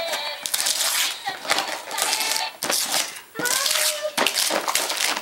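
Wrapping paper tearing and crinkling in repeated rustling bursts as a gift box is unwrapped by hand. A child's voice sounds briefly about three and a half seconds in.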